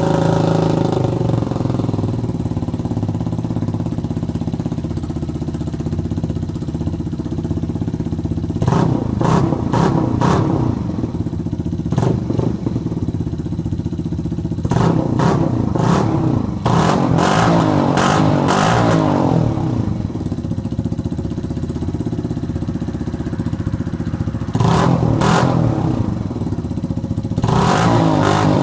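Mash Black Seven motorcycle's single-cylinder engine, fitted with a modified air filter, idling just after starting. The throttle is blipped in short rev-ups several times, with a longer run of revs midway and again near the end.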